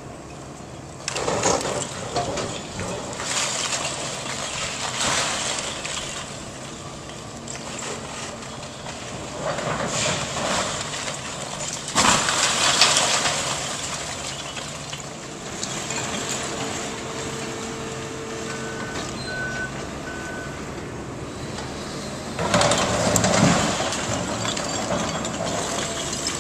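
Hitachi excavator demolishing a brick building: its engine runs under load while brick and rubble crash down in a series of bursts, the loudest about twelve seconds in and another near the end.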